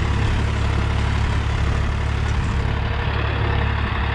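Swaraj 963 FE tractor's three-cylinder diesel engine running steadily at low revs, below 1500 rpm, under load while pulling an 18-disc harrow through ploughed soil in first gear.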